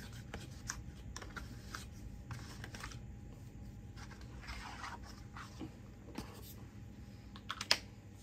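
Faint rustling and small clicks of a cardboard product box being opened and a setting-spray bottle taken out, with a few sharper clicks near the end.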